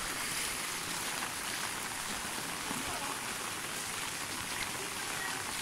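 Rain falling on shallow muddy floodwater covering a road: an even, steady hiss of drops.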